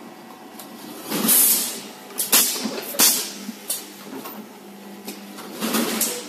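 Automatic 4x2-lane cup sealing machine running: a steady low hum, with sharp hissing bursts and short knocks about every second as it cycles.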